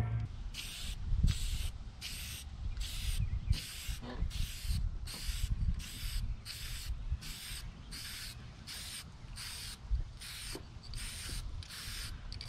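Aerosol spray paint can hissing in short, even bursts, about one and a half a second, as the paint is laid on in quick passes.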